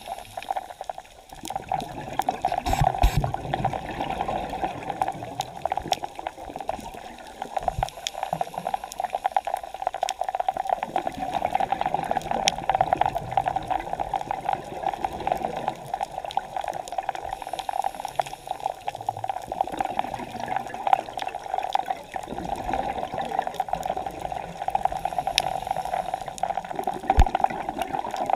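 Underwater sound heard through a camera's waterproof housing: a steady, muffled rush of water with scattered crackling clicks.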